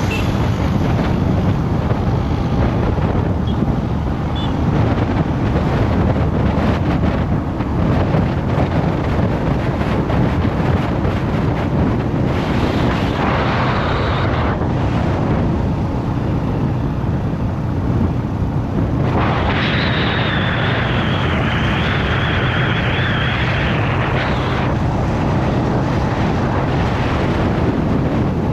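Wind buffeting the microphone over the steady low rumble of a moving vehicle. A high, steady buzz joins in briefly about halfway through and again for about five seconds a little later.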